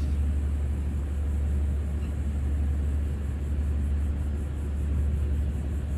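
Steady low rumble of a vehicle engine running, with a faint even hiss over it.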